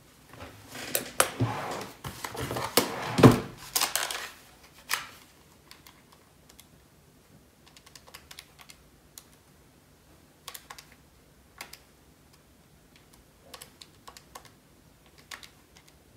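Rustling and handling noise with a few knocks for about four seconds, then single light clicks every second or two: buttons being pressed, typical of working out a sum on a calculator.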